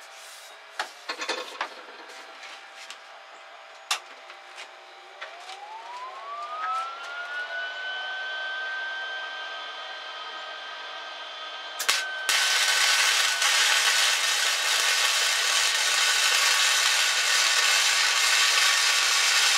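A few clicks and knocks, then a whine that rises over a few seconds and holds a steady pitch. About twelve seconds in, a MIG welder's arc strikes and runs with a loud, steady crackle as it welds the steel tang.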